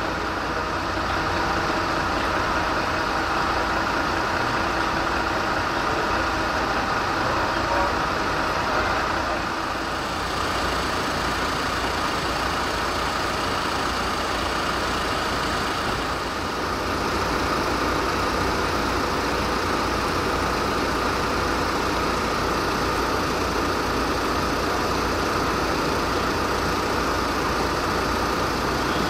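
Heavy engines of emergency vehicles idling steadily, a constant low rumble with an unchanging hum over it.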